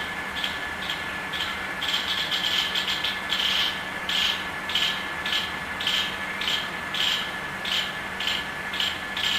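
Squirrel chattering: a steady run of short raspy calls, about two to three a second, over a faint steady high tone.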